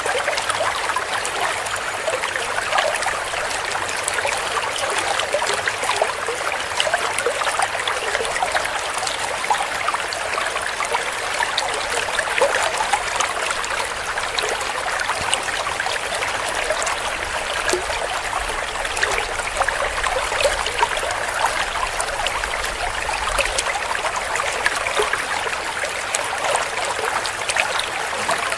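Shallow clear stream trickling and gurgling over stones, a steady splashing flow of falling water.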